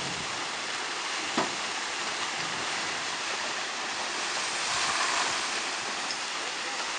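Steady rushing of water flowing down a rubbish-choked river channel. A single sharp click about a second and a half in.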